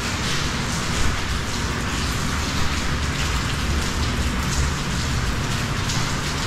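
Steady rain falling on wet stone paving and walls.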